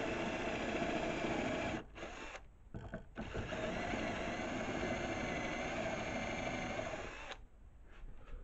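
Electric power tool motor running steadily, stopping just before two seconds in, starting again about a second later, and stopping again near the end.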